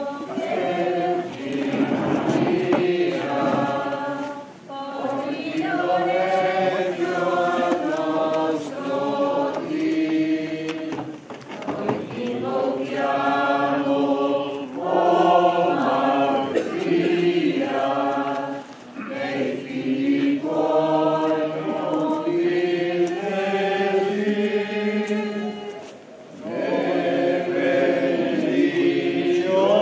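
A crowd of churchgoers singing a hymn together, unaccompanied, in long phrases with a short pause for breath about every seven seconds.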